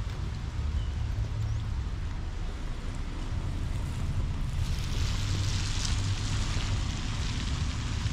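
Rainy outdoor street ambience: a steady low rumble of wind on the microphone, with a hiss like wet surfaces and traffic coming up about halfway through and holding.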